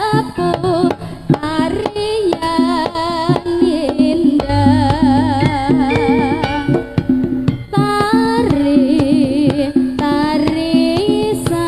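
Live Javanese jaranan music: quick kendang drum strokes over sustained gamelan tones, with a wavering melody line carried on top; the drumming thins out for a few seconds around the middle.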